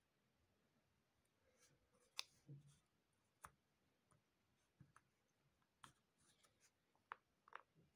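Cardboard jigsaw puzzle pieces being handled and set down on a puzzle mat: a scatter of faint, light clicks and taps at irregular intervals, starting about two seconds in.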